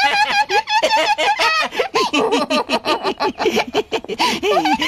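Two cartoon wolf characters laughing together in rapid, repeated ha-ha bursts. A higher-pitched laugh leads, and a deeper laugh carries on from about two seconds in.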